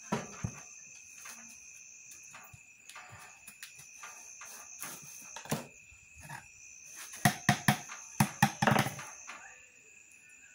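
Blue PVC pipe being handled and knocked against a concrete floor: a few scattered clunks, then a quick run of about six sharp knocks roughly two-thirds of the way in. Crickets chirr steadily throughout.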